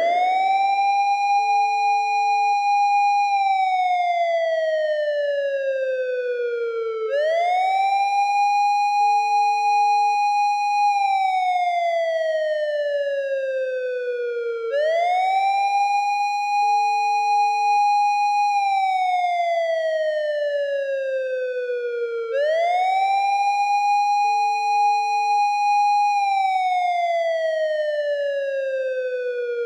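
Japanese police patrol car siren wailing. Its pitch rises quickly, holds for about three seconds, then slides slowly down, and the cycle repeats about every seven and a half seconds. A short, steady, lower tone sounds once in each cycle.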